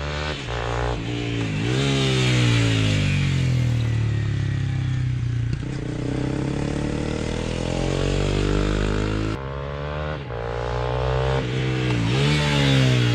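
Honda CBR250R's single-cylinder engine under way. The revs fall, then climb again, twice: about a second in and again near the end.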